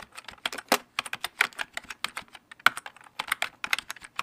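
Fast typing on a computer keyboard: a quick, uneven run of key clicks.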